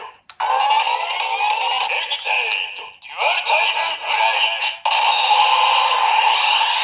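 Electronic sound effects from a Kamen Rider Zi-O DX toy sword's speaker: a synthesized voice call and music, triggered by turning the dial on the blade. It plays in three short phrases, with a brief drop just before the middle, then runs into a steady looping jingle from about two-thirds of the way in.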